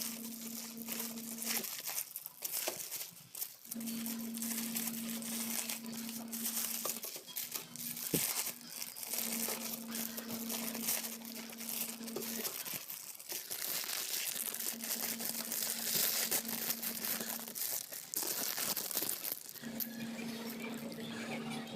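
Plastic packaging crinkling and rustling as a parcel of shoes is unboxed by hand. A steady low hum starts and stops several times underneath.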